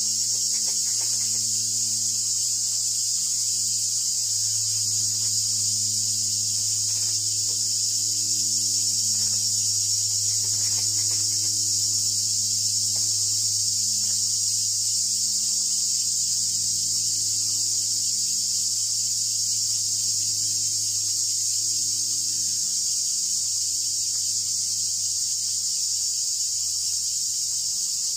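Forest insect chorus: a continuous high-pitched shrill trill that holds steady throughout, with a low steady hum beneath it.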